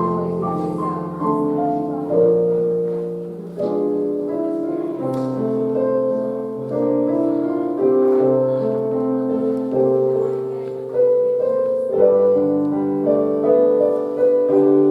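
Slow piano music, a sequence of held chords changing every second or two.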